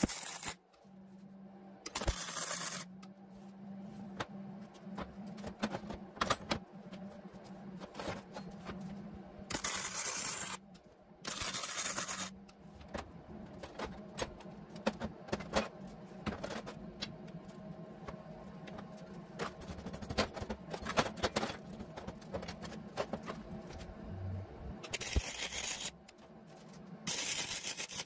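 Arc welding on metal frame tubing: five short welds of about a second each, with sharp clicks and clatter of the tubes being handled between them over a steady low hum.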